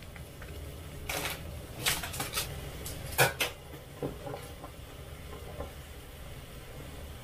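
Cookware and utensils being handled while ramyeon is cooked: a scattered run of sharp clicks and knocks, a few close together and the loudest about three seconds in, over a steady low hum.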